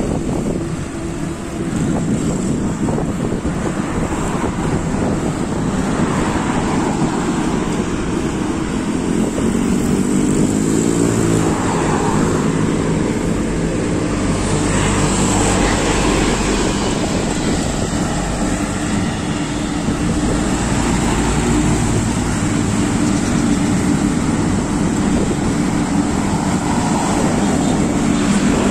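Wind rushing over the microphone of a phone on a moving bicycle, mixed with road traffic noise. Now and then a passing vehicle's engine hum rises and falls, around a third of the way in and again near the end.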